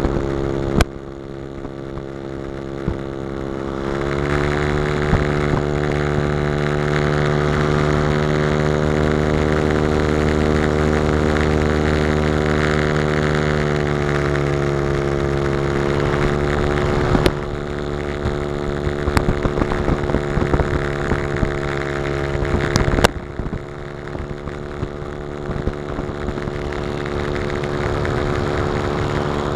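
Engine and propeller of a 3/4-scale (75%) radio-controlled Piper Cub, heard from a camera mounted on the plane in flight, with air rushing past. The engine speeds up about four seconds in, holds steady, and is throttled back a little past twenty seconds in; a few sharp clicks come through along the way.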